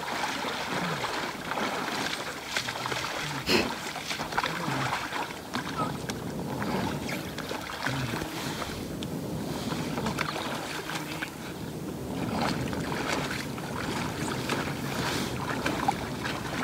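Shallow river water running and splashing as people wade and drag an inflatable boat over the shallows, with scattered knocks and one sharp knock about three and a half seconds in.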